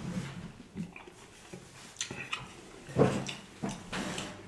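Close-miked mouth sounds of a man chewing food, with scattered short smacks and a brief voiced sound from the throat about three seconds in.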